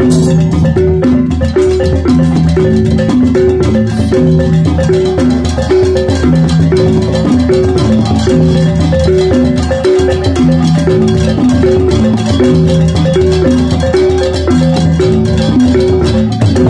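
Balinese gamelan beleganjur playing the gilak pattern: small kettle gongs repeat a short cyclic melody over kendang drums and a large hanging gong, at a steady, unbroken tempo.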